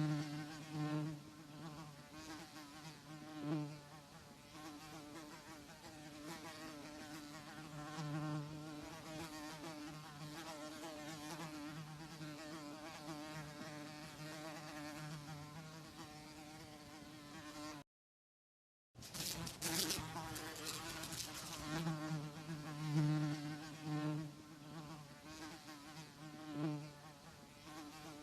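Houseflies buzzing in a low, wavering drone that swells louder and fades again as they fly close and away. The buzz cuts out completely for about a second roughly two-thirds of the way through, then resumes.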